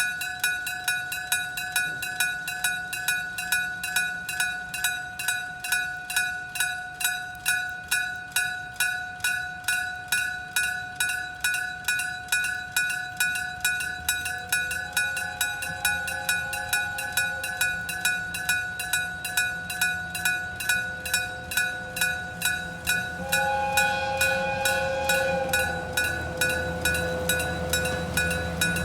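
Electric gong bell of a Japanese level-crossing warning signal, struck by its hammer about twice a second, each strike ringing on. From about halfway, the low rumble of an approaching train grows beneath it, with a couple of steady higher tones joining in and getting louder near the end.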